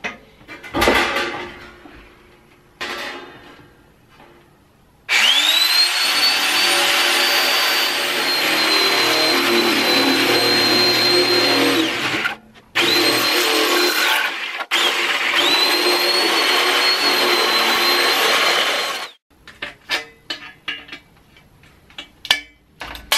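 Handheld electric sheet-metal shear cutting through a sheet-metal panel: the motor spins up with a rising whine about five seconds in, runs steadily while it cuts, stops briefly twice, and shuts off a few seconds before the end. Before and after the cut, clanks and clinks of the metal panel being handled.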